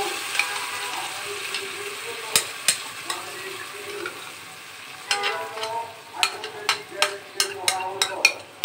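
Washed red lentils poured into hot oil in an aluminium pan, sizzling as the wet lentils hit the oil, the sizzle fading over the first few seconds. Over the second half a silicone spatula scrapes the lentils off the plate in a quick run of short scrapes and taps, about two or three a second.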